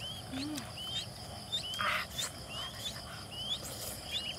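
Ducklings peeping: short, high chirps, each rising then levelling off, about two a second, over a faint steady insect drone. A brief low call sounds about half a second in.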